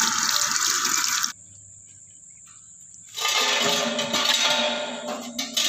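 Water gushing with a loud, steady rushing hiss that cuts off abruptly about a second in. After a short quiet gap, the rushing starts again and fades out near the end.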